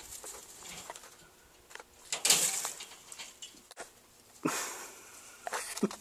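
Two brief bursts of rustling and scuffling with a few light knocks, as a baby rabbit is handled and put back into its nest box.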